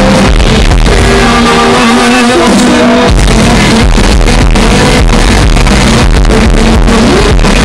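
A live rock band plays at full volume, with guitar over bass and drums. The deep bass drops out about a second in and comes back in about three seconds in.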